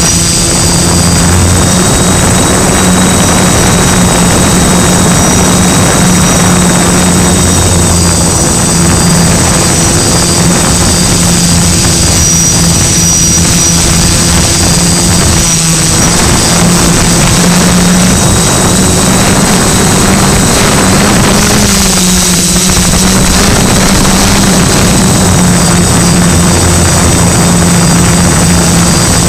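Multicopter drone's electric motors and propellers buzzing steadily, heard close up through the drone's own onboard camera. The pitch rises and wavers briefly about three-quarters of the way through as the motors adjust.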